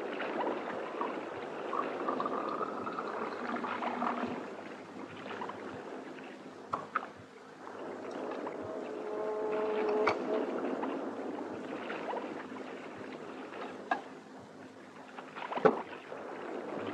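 Water poured from a glass jug into a drinking glass, then a few short clinks of glass and tableware over steady background noise.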